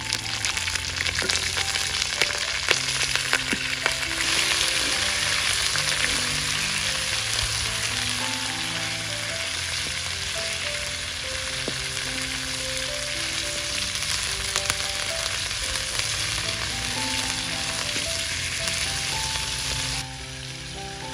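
Food frying in a hot pan: a steady sizzle with sharp crackles and pops in the first few seconds. The sizzle swells about four seconds in and drops away abruptly near the end. Soft background music with a simple melody plays along.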